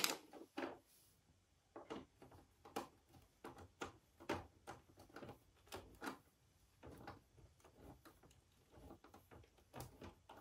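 Faint, irregular clicks and light knocks as hands work on a flat-screen LED TV and its plastic parts.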